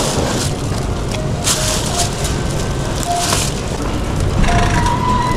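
Thin plastic shopping bag rustling and crinkling in several short bursts as groceries are packed into it and it is lifted, over steady shop background noise. A few short electronic tones sound near the end.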